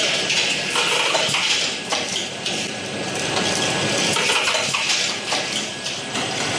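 Capsule packing line running, centred on an electronic multi-tray capsule counter: a steady, dense clatter of small hard clicks and clinks as capsules rattle over the vibrating trays and the machinery runs.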